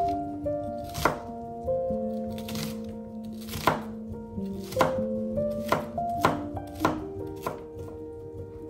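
Santoku knife chopping diced onion on a wooden cutting board: sharp knocks of the blade on the wood, roughly one a second and unevenly spaced. Soft background music with held notes plays underneath.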